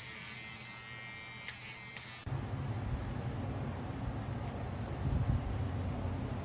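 A small electric motor buzzing with a high whine, like a shaver or hair clippers, which cuts off abruptly about two seconds in. Low rumbling noise follows, with a few faint short high chirps.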